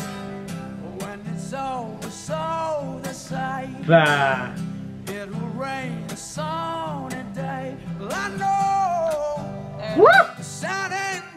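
A man singing a slow folk-country song over a strummed acoustic guitar, holding and bending long notes, with a loud wavering note about four seconds in and a quick upward vocal slide near the end.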